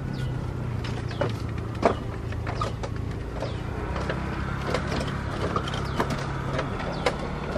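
Distant jet airliner's engines at a low, steady hum as it moves on the runway, with frequent short sharp clicks and a few quick falling chirps over it, the loudest click about two seconds in.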